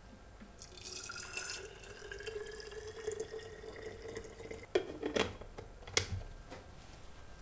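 Hot water poured from a stainless electric kettle into a glass blender jar, the pouring note rising slightly as the jar fills. Then come a few short knocks as the lid is pressed onto the jar.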